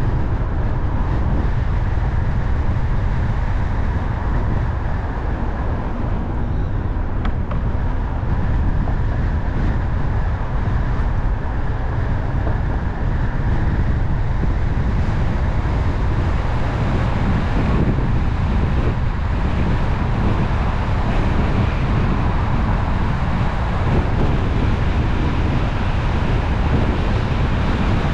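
Car driving at a steady speed: continuous low rumble of tyres on the road mixed with wind noise, even throughout.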